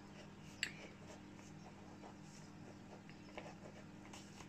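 Faint scratching of a squishy novelty pen writing on notebook paper, with one short click about half a second in, over a faint steady hum.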